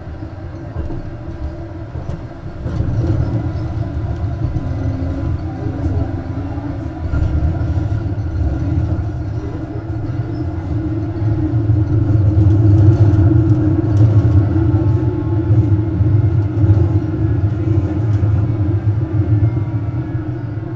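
Duewag M6D articulated tram running, a low rumble with steady humming tones over it. It grows louder in two steps over the first seven seconds, is loudest around the middle, then eases a little.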